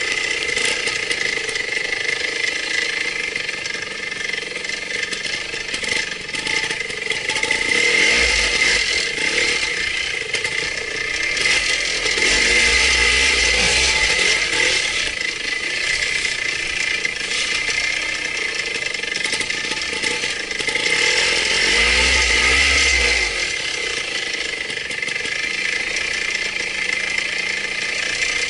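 Trials motorcycle engine running as the bike is ridden through a wooded section, swelling up and back down a few times, about 8, 13 and 22 seconds in.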